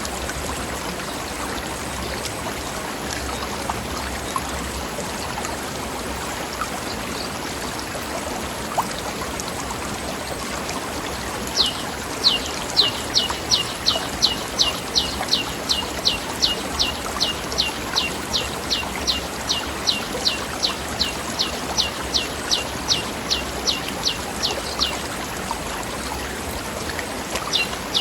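A forest stream running steadily over rocks. About twelve seconds in, a bird starts a long series of quick, high, downward-sliding notes, about three a second, which pauses near the end and starts again just before the end.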